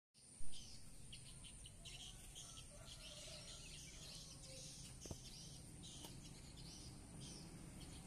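Lovebirds chattering: rapid clusters of short, sharp chirps. A single knock sounds right at the start.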